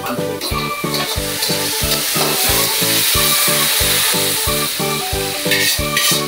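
Chili shrimp and thickened sauce sizzling hot in a wok while a ladle stirs and scrapes it out onto a plate. The sizzle swells in the middle, over background music with a steady beat.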